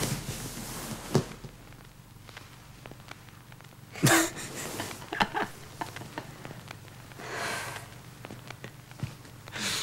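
Two people's short breathy laughs and exhales, the loudest a burst about four seconds in and others coming at intervals, with a few small clicks between them.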